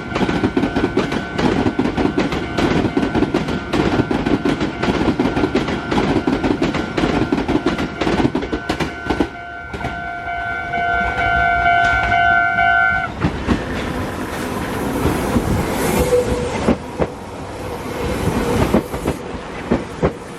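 Meitetsu train running past a level crossing, wheels clacking over the rail joints, while the crossing's warning bell rings with a steady tone that stops about two-thirds of the way through. The train keeps running after the bell stops.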